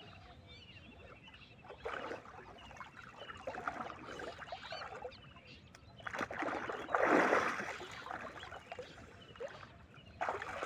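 A person bathing in a shallow river pool, splashing and sloshing the water as he surfaces and moves about, with a louder splash about seven seconds in.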